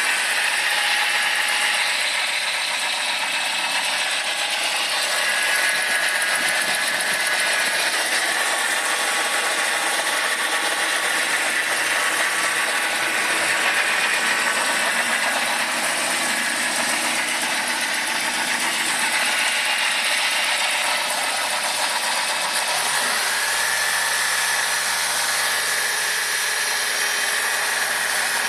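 BMW M43 four-cylinder engine running with a steady metallic rattle that appeared after the engine overheated from a failed water pump; its source is unknown to the owner. A low hum joins near the end.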